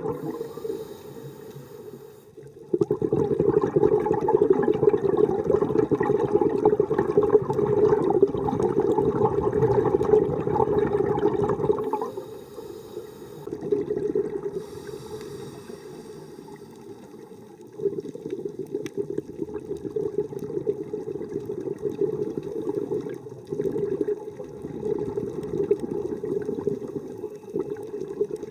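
Underwater water noise with rushing and bubbling, as heard through a diving camera's housing. It is loud for long stretches, drops away for a few seconds about a third of the way in, then picks up again.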